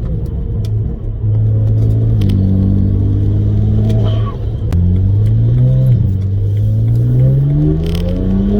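BMW 335is twin-turbo N54 straight-six, breathing through a straight-pipe exhaust and aftermarket turbo inlets, running at a steady note with a brief dip about a second in. From about five seconds in it pulls in a high gear, its note rising slowly and steadily.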